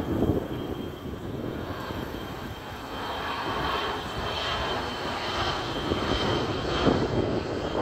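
McDonnell Douglas MD-82 airliner with Pratt & Whitney JT8D turbofans flying low overhead. Its engines make a steady rushing sound, and a high whine grows louder from a few seconds in as the jet approaches.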